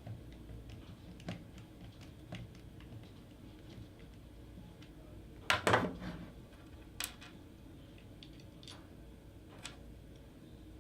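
Scattered small clicks and taps of tools and metal parts being handled on a VCSO industrial joystick during reassembly, with a louder clatter of several clicks about five and a half seconds in and a single sharp click a second later.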